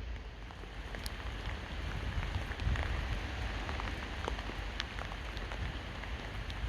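Steady rain falling, with individual drops ticking sharply on a nearby surface over an even hiss, and a low rumble underneath.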